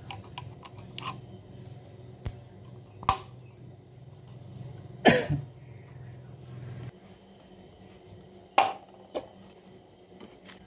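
Small scissors snipping a thin PET plastic bottle and the cut plastic pieces being handled and set down on concrete: a handful of sharp clicks and knocks, the loudest about five seconds in. A low steady hum runs underneath and stops about seven seconds in.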